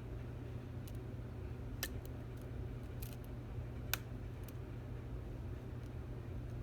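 Occasional sharp little clicks of a lock pick working the pins inside a Stanley 24/7 lock's keyway, about half a dozen scattered through the stretch, over a steady low hum.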